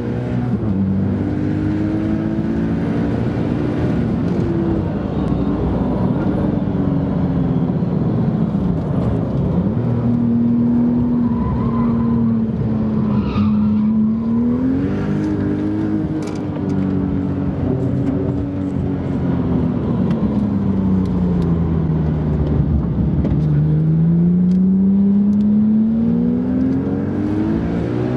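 Onboard sound of a 9FF-tuned Porsche 911 GT3 RS's turbocharged flat-six at full throttle, heard from inside the cabin. The engine note climbs and drops several times as the car accelerates and lifts, ending in a long steady climb near the end.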